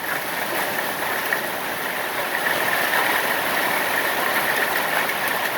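Hail storm: hailstones and rain falling, a steady dense rush of countless small impacts.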